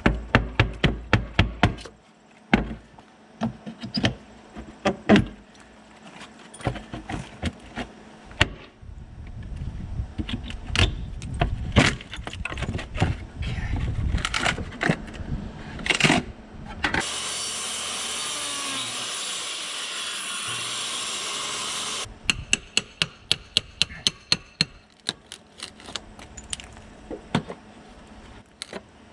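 Hammer blows and knocks on wood in quick runs of about five strikes a second, with scattered single knocks and tool rattles between them. A steady hiss runs for about five seconds in the middle.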